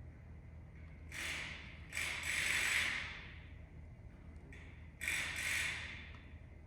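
Three short bursts of hissing, like a jet of air or spray: a brief one about a second in, a longer one right after, and another near the end, each fading away.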